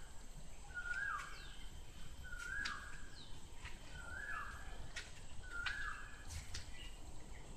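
A bird calling repeatedly outdoors: five short, alike calls, each a held note that drops away at its end, about one every second and a half.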